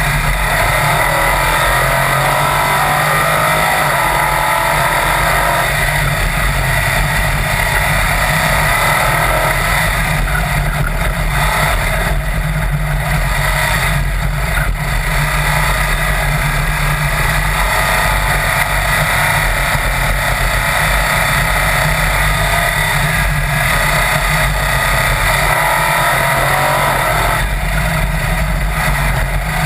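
Sand rail dune buggy engine running at speed, its note shifting up and down as it accelerates and eases off, under steady wind noise on the open-cage microphone.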